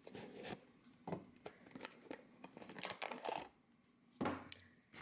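Faint rustling, crinkling and light clicks of a small toy display box being handled, in scattered short bursts.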